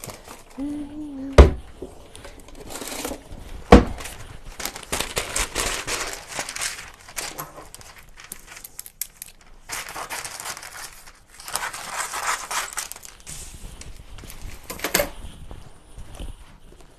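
Parchment paper being crinkled, torn and handled in stretches of rustling. There are two sharp knocks on the counter, about a second and a half in and again near four seconds, and another clack near the end.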